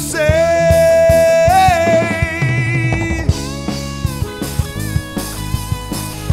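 Live rock band playing: an electric guitar lead holds one long note and bends it upward about a second and a half in, over bass guitar, drums and keyboard.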